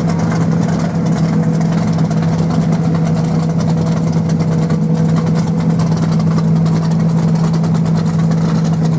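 Rock bouncer buggy's engine idling steadily, one even, unchanging drone with no revving.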